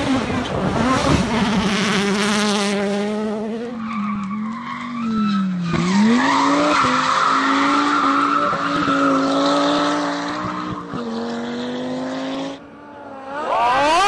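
Rally car engines at full throttle, one clip after another. In the middle clip the revs sag and climb back, then hold high while the car slides sideways with its tyres skidding and squealing.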